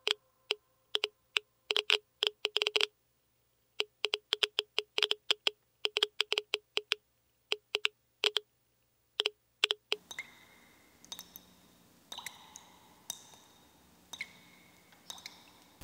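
Irregular sharp clicks, some single and some in quick clusters, with a short ringing tone to each. About ten seconds in, a low hum and faint hiss come in beneath them, and the clicks thin out and ring longer, with a more electronic tone.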